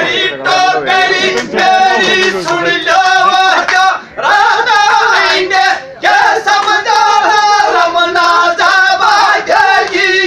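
Several men singing a Gujjar dhamal folk song together, loud, on long held notes, with brief breaks about four and six seconds in.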